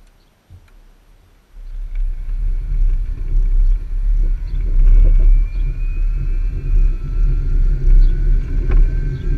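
Wind rumble on the microphone and road noise from a towed jet ski trailer rolling along tarmac behind a mobility scooter. It sets in about a second and a half in and stays loud, with a thin whine rising slowly in pitch.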